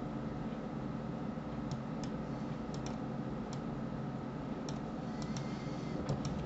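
Faint computer mouse clicks, about ten of them, several in quick pairs, over a steady low hum.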